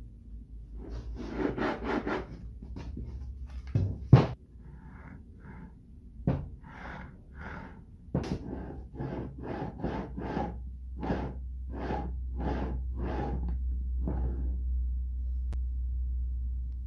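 V-groove bearings of a wooden slider carriage rolling along steel angle-iron rails, pushed back and forth in short, quick strokes that come in an even run later on. There is a sharp knock about four seconds in.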